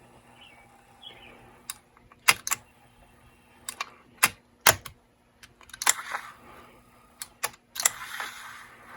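Irregular sharp clicks and clacks from the buttons and mechanism of a vintage Dictaphone tape player being worked by hand, about a dozen in all, with a soft scraping hiss near the end. The clicking comes as he tries to get the tape to rewind.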